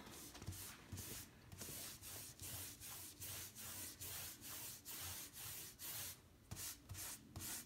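Soft, repeated swishes of a paintbrush dragged back and forth across a wooden cabinet panel, about two strokes a second, working the paint into the surface.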